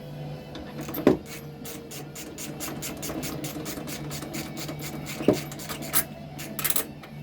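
Socket ratchet clicking rapidly, about five clicks a second, as a rear shock bolt on a Harley-Davidson touring bike is worked loose, with two loud knocks of metal on metal between.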